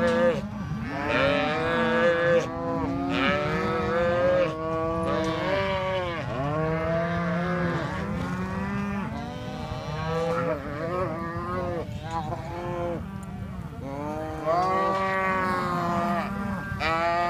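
A pen full of black calves bawling, many calls overlapping one another without a break.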